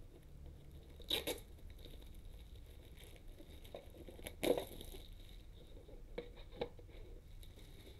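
A cardboard model-kit box handled and set down on a cutting mat: a brief rustle about a second in, a louder scuff about four and a half seconds in, and two light taps near the end.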